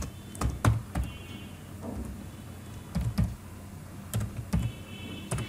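Computer keyboard keystrokes: about eight separate key presses, spaced unevenly, as a line of code is typed.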